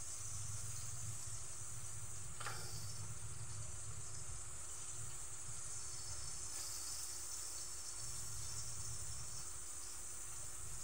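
Pork pieces frying in oil, a steady high sizzle.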